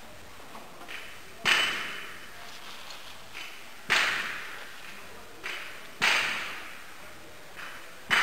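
Hammering that echoes through a large hall: a light tap, then a hard strike about half a second later, repeated four times roughly every two seconds.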